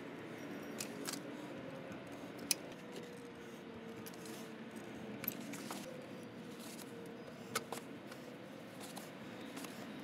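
Caulking gun and hands at work sealing around a doorbell button: a handful of faint, sharp clicks scattered over a quiet background with a low steady hum.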